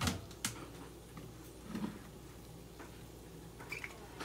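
Soy sauce braise with quail eggs simmering in a frying pan, bubbling with scattered small pops and ticks, the two sharpest near the start. A faint steady low hum runs underneath.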